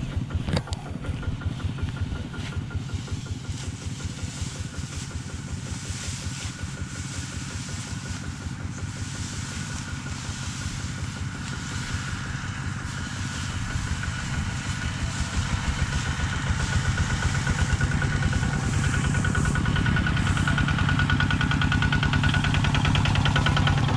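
Single-cylinder diesel engine of a Kubota two-wheel walking tractor running steadily with a fast, regular beat, hauling a loaded trailer. It grows louder over the last ten seconds as the tractor draws near.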